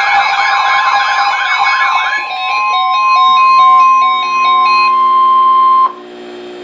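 NOAA Weather Radio warning alarm tone: a steady, loud single-pitch tone, at first overlaid by a warbling siren sound and then by a stepping chime-like melody. About six seconds in the tone cuts off suddenly, leaving a low radio hum.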